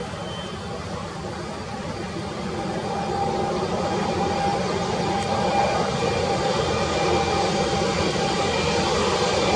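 Twin General Electric CF6-80 turbofan engines of an Airbus A330-300 running as the airliner moves past. The steady rumble grows louder from about two seconds in, and a humming tone joins it.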